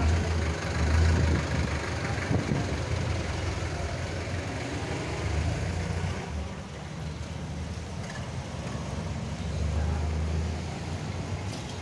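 Street traffic: motorcycle engines running nearby with a steady low hum, over a background of passing traffic.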